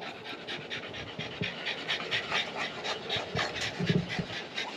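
French bulldog panting rapidly, short quick breaths at about five a second.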